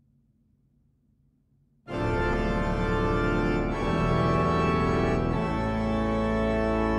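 Hauptwerk virtual pipe organ sampled from the Walcker & Cie organ, playing the opening of an improvisation: after about two seconds of near silence, loud sustained chords enter suddenly and move on to new chords twice.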